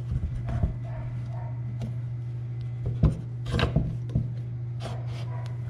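Row marker trip linkage of a John Deere 7000 planter being worked back and forth by hand: scattered metal clicks and scrapes as the bar catches and trips the plate, with one sharp clunk about three seconds in, over a steady low hum.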